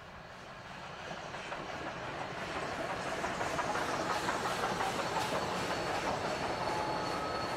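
Union Pacific steam locomotives Big Boy 4014 (a 4-8-8-4 articulated) and 4-8-4 No. 844 double-heading a train past, growing steadily louder as they approach: a rush of running gear, rolling wheels and steam hiss, with clickety-clack of wheels over the rails. A faint high steady squeal comes in near the end.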